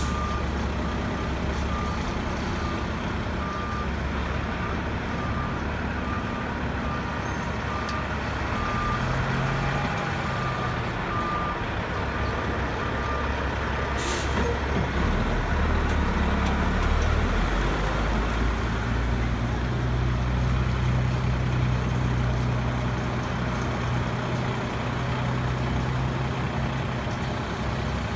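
Heavy-duty tow truck's diesel engine running while it maneuvers, with a reversing alarm beeping about once a second through the first half. A short, sharp air-brake hiss comes about halfway through, and the engine then pulls harder with a steadier, deeper note.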